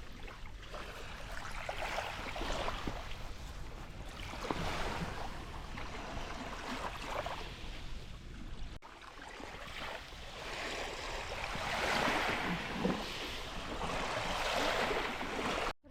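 Ocean surf: waves breaking and washing up the beach, swelling and fading every few seconds, over a low wind rumble on the microphone.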